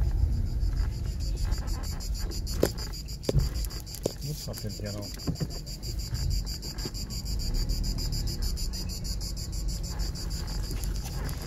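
Cicadas buzzing steadily in a fast-pulsing, high-pitched drone, over a low rumble of wind or traffic, with a few sharp knocks a few seconds in.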